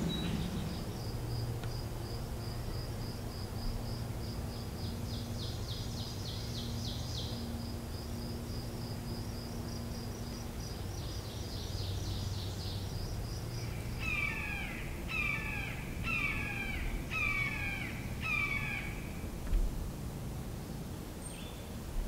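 Red-shouldered hawk calling five times, about one harsh, falling call a second, in the second half. Before that a small songbird sings a long, rapid, high trill broken by buzzy falling notes.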